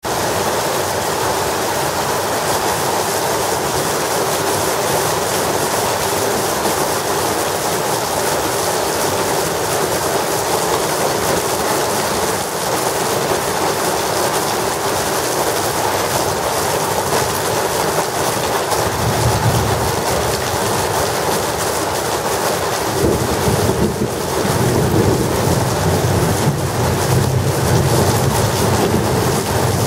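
Heavy thunderstorm rain pouring steadily. Low thunder rumbles in about two-thirds of the way through, eases briefly, then comes back stronger and keeps rumbling.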